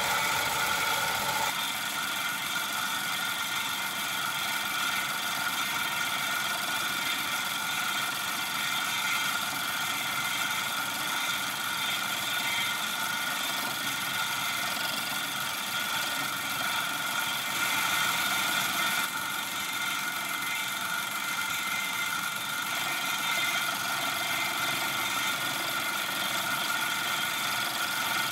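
Home-built Gingery milling machine taking a cut across an aluminium work table: a steady running hum of spindle and cutter with a few steady high tones, unbroken, shifting slightly in tone about a second and a half in and again near the middle.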